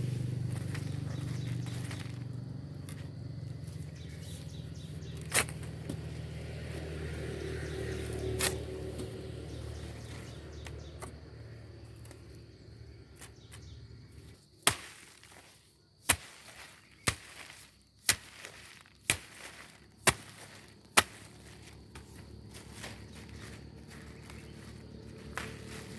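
A run of seven sharp knocks, about one a second, in the second half, after a faint low hum and a few scattered clicks.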